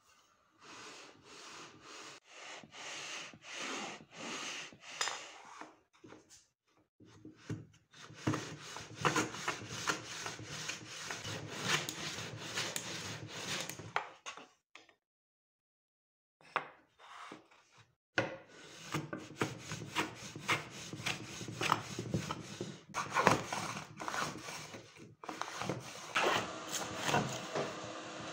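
Metal bench plane pushed on its side along a shooting board, shaving the end of a small wooden block square: a run of repeated scraping strokes, with a pause of a few seconds near the middle before the strokes resume.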